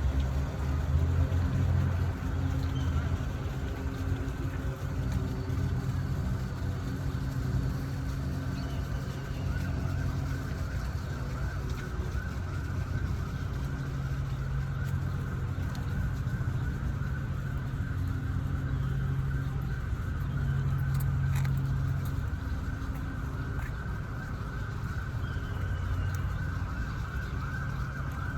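Steady low rumble of city traffic, with a few held low engine tones in it.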